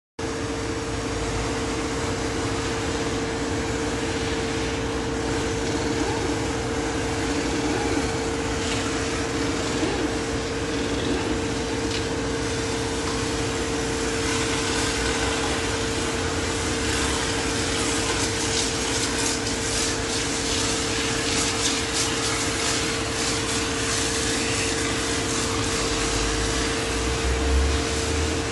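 Car-wash machinery running with a steady hum, along with the hiss of foam and water being sprayed onto a car, the hiss stronger in the second half. A low thump near the end.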